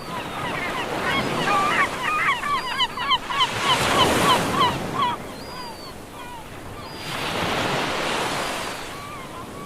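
Beach ambience of waves washing in, swelling up twice, with birds calling over it in many short, quick squawks, busiest in the first half.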